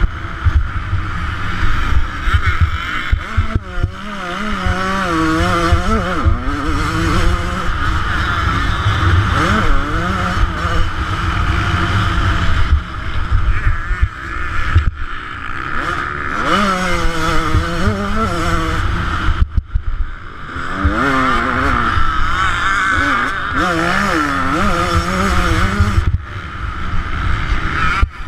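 2009 Yamaha YZ125's two-stroke single-cylinder engine ridden hard, its revs climbing and dropping again and again, with a heavy wind rumble on the microphone.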